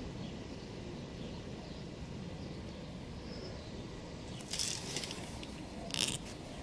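Steady low outdoor background noise, with two brief scraping, rustling sounds about four and a half and six seconds in, from handling the rubber grommet and camera near the concrete ground.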